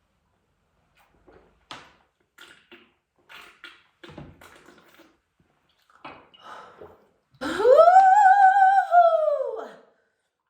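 A person's loud, drawn-out vocal cry about seven seconds in, rising in pitch, held, then falling away over about two seconds: a reaction to downing a shot of liquor. Before it, a few faint knocks and clinks.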